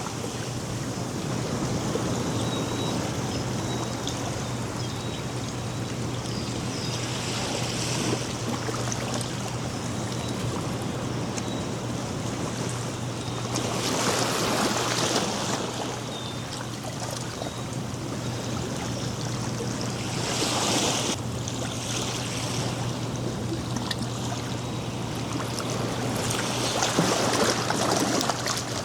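Ocean surf breaking on a sandy beach: a steady wash of water with a wave surging in about every six seconds, four times.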